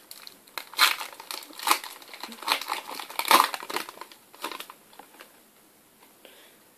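Foil trading-card packet crinkling in the hands as it is opened and the cards are pulled out. It makes a run of sharp, irregular crackles that die away for the last two seconds.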